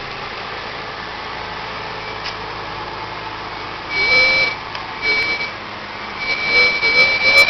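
Toyota Avalon's brakes squealing: a high-pitched squeal starting about four seconds in, again about a second later, and more often through the last second and a half, over a steady background of road noise.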